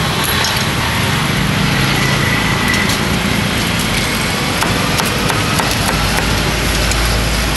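Steady din of street traffic with vehicle engines running, and a few faint scattered clicks.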